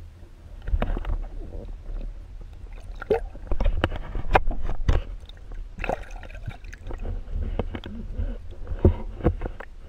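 Water gurgling and sloshing heard from underwater, with a steady low rumble and many scattered sharp clicks and knocks, as hands let a bass go in the water.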